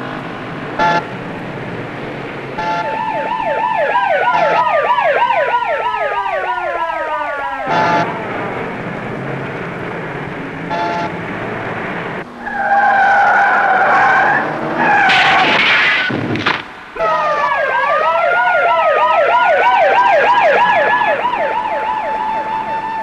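Siren warbling rapidly up and down, with falling tones sliding over it. In the middle come a screech like skidding tyres and a harsh noisy burst. Then the siren warbles again and settles to a steady note near the end.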